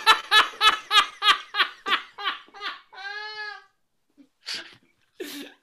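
Men laughing hard: rapid bursts about four a second that fade over roughly three seconds, then one long high-pitched wheeze and a few short gasps for breath.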